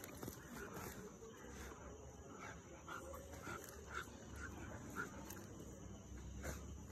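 Several dogs play-fighting, with short dog vocalizations repeating about twice a second through the middle.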